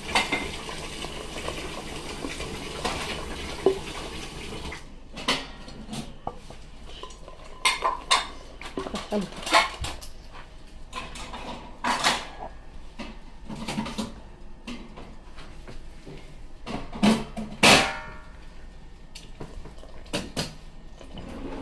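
Wire whisk mixing cornbread batter in a glass mixing bowl: a steady scraping stir at first, then scattered clinks and knocks of the whisk and spatula against the glass.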